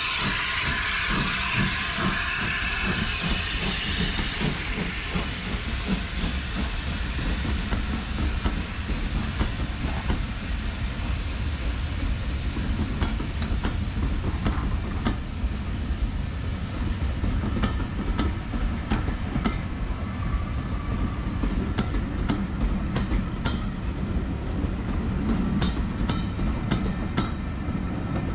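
Steam hissing from a departing USATC S160 2-8-0 steam locomotive for the first few seconds, then its train of passenger coaches rolling past: a steady low rumble of wheels with many sharp clicks and clacks over the rail joints.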